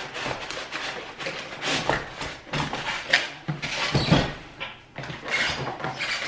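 Cardboard printer box and its foam packing inserts being handled and shifted on a countertop: irregular rustling, scraping and knocking.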